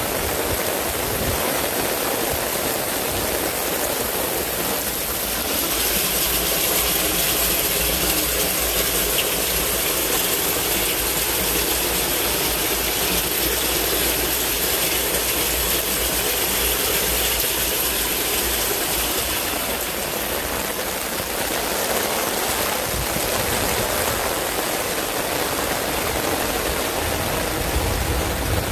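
Steady rush of water in a torrential downpour: heavy rain and water pouring through a yard drainage system. It brightens into a harsher hiss from about five seconds in and settles back near the end.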